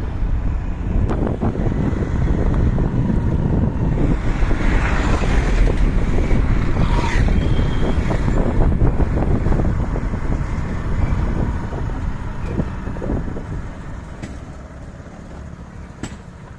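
Wind rushing over the microphone of a moving scooter, with the scooter's running underneath. The rush eases off near the end as the ride slows.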